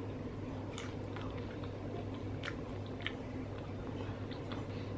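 Close-mouthed chewing of a McDonald's sesame-coated cheese-and-bacon bite, with faint, scattered soft crunches and mouth clicks. A low steady hum runs underneath.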